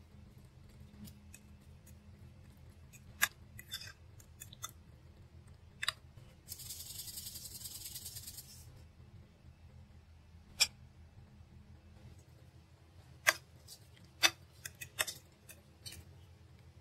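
Metal fork clicking and scraping against a ceramic plate as cooked beans are mashed, sharp clinks scattered throughout. About six seconds in, a salt shaker is shaken over the plate for about two seconds in a steady rattle.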